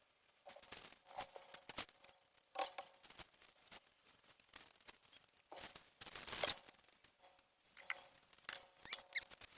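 Objects being handled and shifted while a bin is sorted: scattered clicks, taps and knocks, with a longer rustle about six seconds in.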